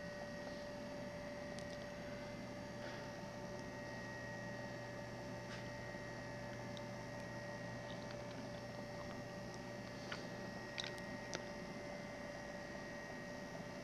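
Steady faint electrical hum of a quiet room. A few small faint clicks come about ten seconds in.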